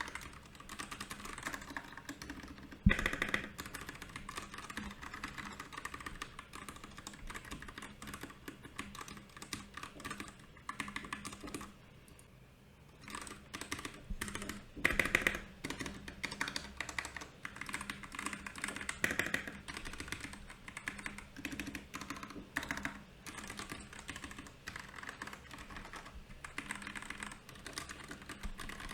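Typing on a Royal Kludge RK68 mechanical keyboard: a fast, continuous run of key clicks and clacks. There is one louder knock about three seconds in and a brief lull near the middle.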